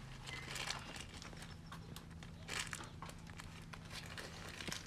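Irregular light clicks and scrapes of a steel bike brake cable being worked through a small hole in the front brake, with a low steady hum underneath.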